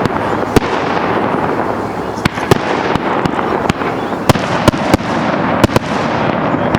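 Fireworks display: about a dozen sharp bangs at irregular intervals, some close together, over a continuous loud crackling rush of further bursts.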